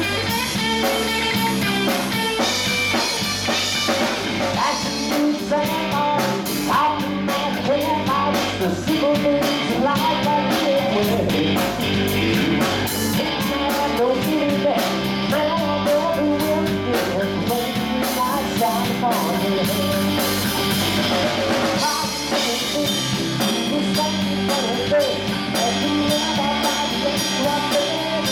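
Live rock band playing: electric guitar through an amplifier, electric bass and a drum kit, with a man singing into a microphone.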